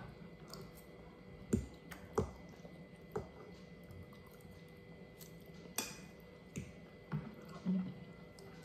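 Forks clicking and tapping now and then against a ceramic bowl and a child's plastic divided plate while eating noodles, a few scattered sharp clicks over a quiet background.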